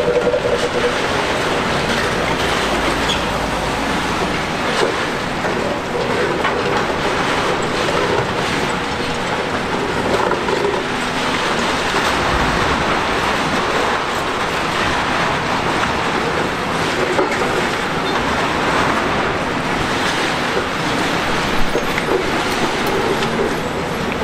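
Hitachi Zaxis 870 XXL high-reach demolition excavator at work: a steady, dense din of machine and demolition noise with many small knocks and rattles and short squeals now and then.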